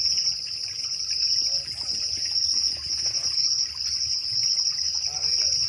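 Insect chorus of crickets or cicada-like insects shrilling on one high pitch, swelling and fading in waves about every two-thirds of a second.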